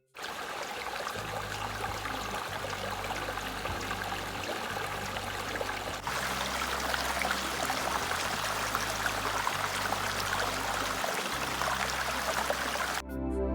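A woodland stream running, a steady rush of flowing water that gets a little louder about six seconds in.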